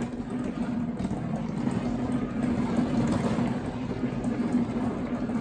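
A steady mechanical drone: an even rumbling noise with a constant low hum running under it.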